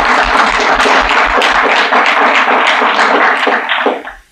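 Audience applauding, many hands clapping, until it stops fairly quickly about four seconds in.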